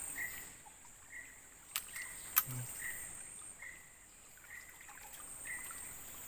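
Steady high-pitched insect drone, with a short chirp repeating about once a second and two sharp clicks about two seconds in.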